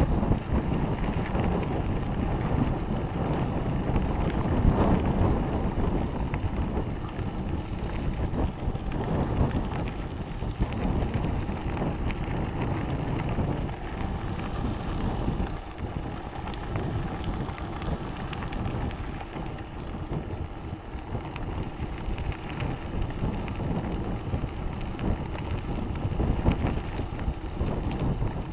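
Wind buffeting the microphone over the rumble of mountain-bike tyres rolling on a dirt and gravel trail.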